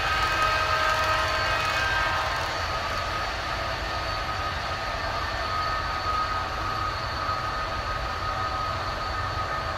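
HO-scale model passenger train rolling along its metal track: a steady metallic rolling hiss and low rumble with thin whistling tones. The sound eases a little after the first couple of seconds as the last cars pass.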